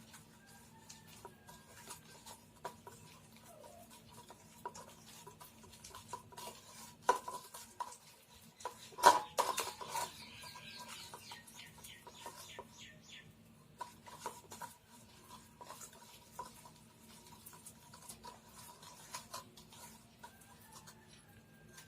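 Prawns being mixed into a masala and lemon marinade in a bowl: scattered clinks and scrapes of a utensil against the bowl. The loudest is a sharp knock about nine seconds in, followed by a few seconds of quick rasping strokes.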